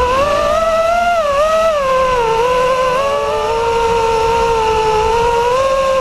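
Whine of an FPV quadcopter's electric motors and propellers, heard from the drone's own camera, rising and falling in pitch as the throttle changes, then settling to a nearly steady pitch about halfway through, with the rush of air underneath.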